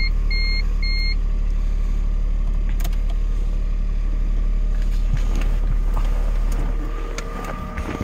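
2015 Smart Fortwo's small three-cylinder engine idling steadily just after a cold start at about −20 °C. An in-car warning chime beeps its last three times in the first second.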